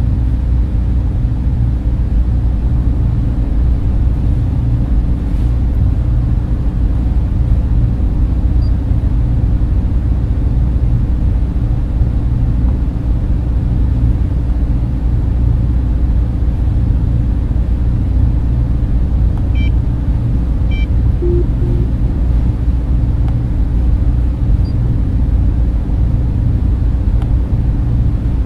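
Spaceship-interior ambience: a steady, deep rumbling drone like machinery and fans. It is unbroken throughout, with a few faint short electronic tones about two-thirds of the way in.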